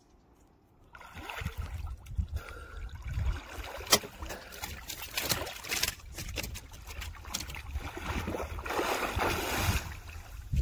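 Water sloshing and splashing around a person wading waist-deep, starting about a second in, with a single sharp click about four seconds in and heavier splashing near the end.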